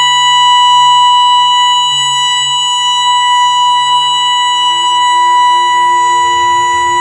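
A steady, loud 1 kHz test tone played through a DJ sound system's loudspeakers for a sound check, held at one unchanging pitch with a harsh row of overtones above it.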